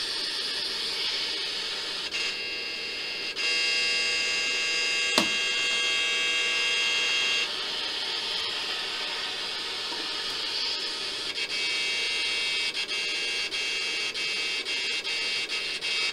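Static hiss from a DIY kit FM radio's small speaker while it is not tuned to a station, with a cluster of steady whining tones joining in for a few seconds about three seconds in. A sharp click comes about five seconds in, and the hiss flickers briefly several times near the end.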